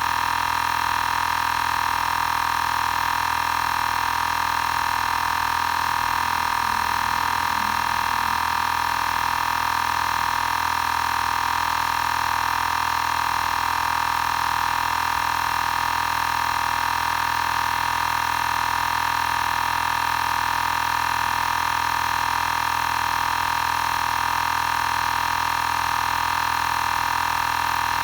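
Xiaomi Portable Electric Air Compressor 2 running steadily while pumping up a car's spare tyre, its pitch and loudness unchanging.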